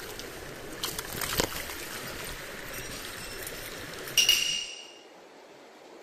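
Shallow mountain stream flowing and trickling over stones, with a few small knocks. About four seconds in comes a short, sharp ringing clink, and soon after the water sound cuts off suddenly.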